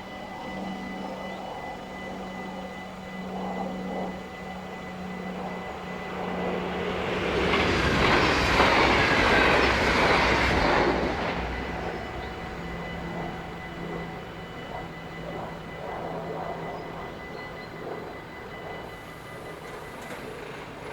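A train passing over a level crossing: its noise builds about six seconds in, is loudest for a few seconds, then fades away.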